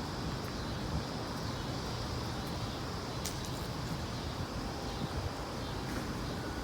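Steady outdoor background noise: a low rumble and hiss with a faint, wavering high-pitched drone above it, and a couple of faint clicks.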